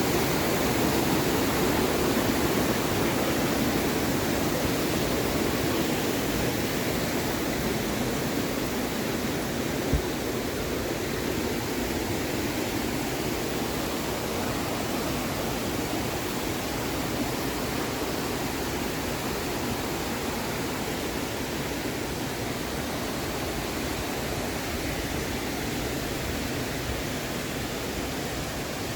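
Anna Ruby Falls' cascading water rushing steadily, easing slightly in loudness over time. A single short click about ten seconds in.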